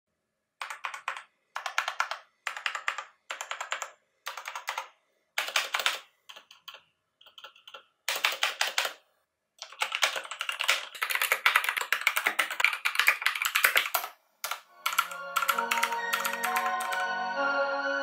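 Typing on a Motospeed CK62 60% mechanical keyboard with Outemu Red linear switches. The keystrokes come in short runs with brief pauses, then in one longer run of fast typing. Music fades in about fifteen seconds in, under the last keystrokes.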